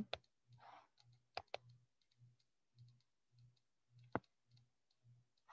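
Near silence broken by a few computer mouse clicks: one just after the start, a quick pair about a second and a half in, and a sharper one about four seconds in. A faint low hum pulses about twice a second underneath.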